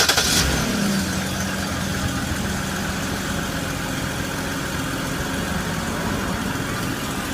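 2011 BMW engine being started: the last fraction of a second of the starter's rapid, even cranking, then the engine catches about half a second in, picks up briefly and settles into a steady idle. The uploader puts the car's trouble down to a bad starter.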